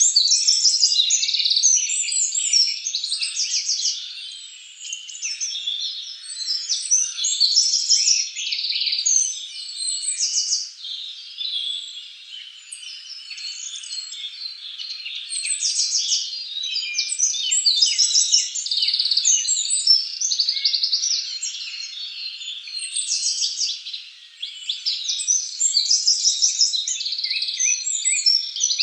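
Dense chorus of many small animals calling at once: overlapping high chirps and rapid trills that swell and ebb in loudness.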